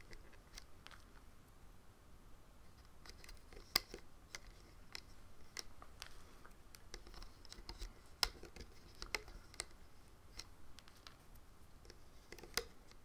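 Faint, irregular clicks and taps as rubber loom bands are stretched over and pushed onto the plastic pins of a Rainbow Loom, with a few sharper clicks about four and eight seconds in.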